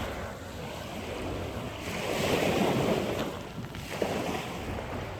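Rushing water with wind buffeting the microphone, swelling a little about two seconds in, with a faint click or two near the end.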